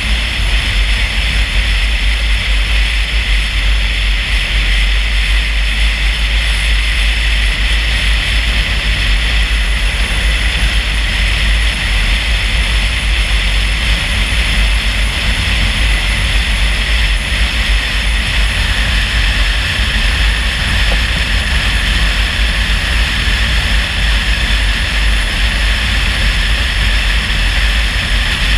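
Steady road noise of a car driving along: a constant low rumble with a hiss of tyres and wind.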